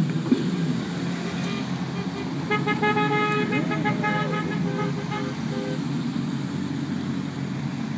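Cars driving slowly past with engines running, and a car horn honking for over a second about two and a half seconds in.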